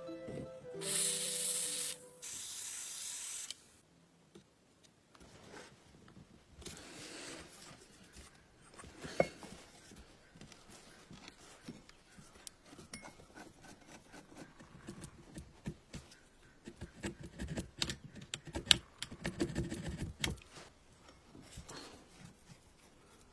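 Two short hissing bursts near the start, then scattered rubbing, scraping and clicking of parts being handled and worked by hand, with a couple of sharper knocks.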